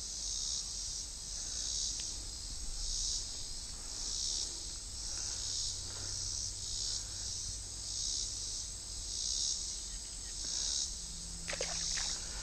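A chorus of insects calling, the high buzzing swelling and fading in a steady rhythm about one and a half times a second. A few sharp clicks come near the end.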